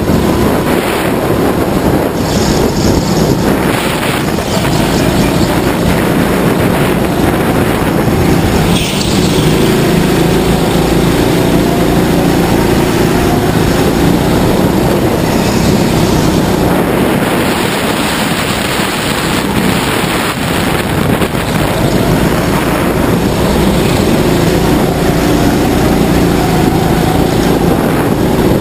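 Go-kart running flat out around an indoor track, heard from onboard: a steady loud drive note that rises and falls in pitch as the kart brakes and accelerates through the corners, with wind rushing over the microphone.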